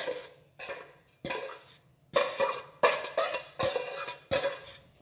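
A metal spoon repeatedly knocking against metal cookware while half-cooked rice is spooned into the pan. There are about seven knocks, roughly one every two-thirds of a second, and each rings briefly.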